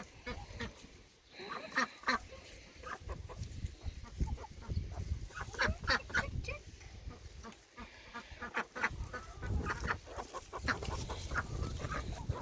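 A flock of farmyard ducks and chickens calling in short, scattered calls that cluster most thickly about halfway through and again near the end.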